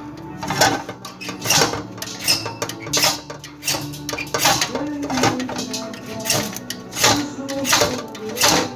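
Metal scraping and clinking from a hand working pieces around inside a perforated stainless-steel strainer bowl: irregular strokes, roughly one or two a second, over background music.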